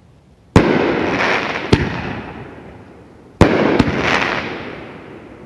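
1.75-inch reloadable ball shells firing: two loud booms, about half a second and three and a half seconds in, each trailing off in a long rolling echo. A smaller sharp pop follows about a second after the first and another shortly after the second.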